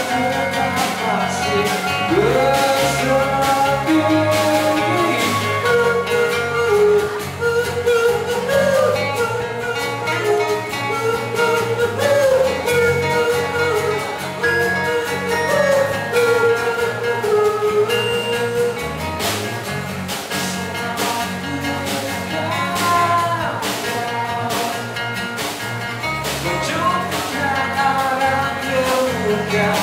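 Live band playing a song: acoustic guitars strummed and a snare drum keeping a steady beat, with a man singing lead into the microphone.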